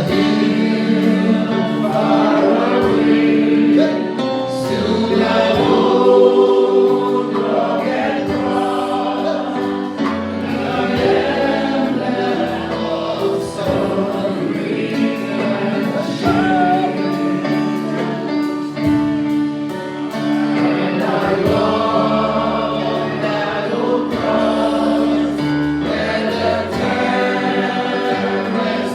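Choir singing a gospel worship hymn with sustained musical accompaniment.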